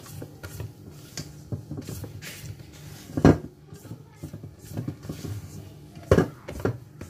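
Spatula scraping and knocking against a stainless steel mixing bowl while folding flour into whipped egg batter, with the loudest knocks about three and six seconds in.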